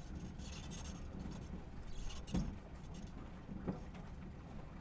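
Low, steady rumble of an Isuzu KB300's 3.0 four-cylinder turbo-diesel and its road noise, heard from a microphone mounted under the truck, with two short thumps about halfway through and a little over a second later.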